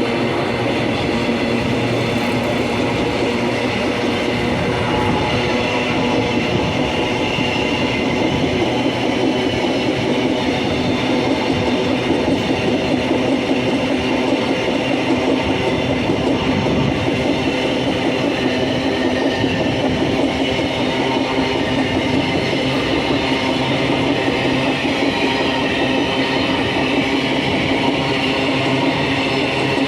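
Freight train rolling past, a steady loud run of wheels rumbling and clattering on the rails with a few sustained ringing tones over it.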